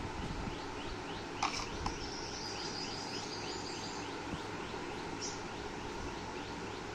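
A bird chirping over and over in a steady series of short rising chirps, about three a second, over steady background noise. A sharp click sounds about a second and a half in.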